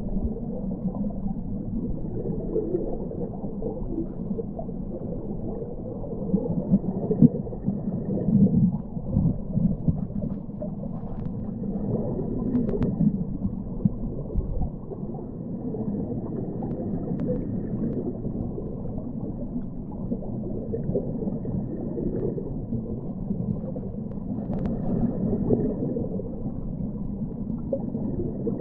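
Muffled underwater rush of flowing river water heard by a submerged camera, with a few faint clicks now and then.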